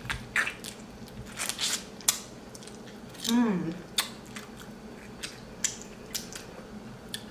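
Close-up eating sounds of king crab knuckle being bitten and sucked: scattered sharp clicks and short crunches of shell, with a brief hummed "mm" falling in pitch about three and a half seconds in.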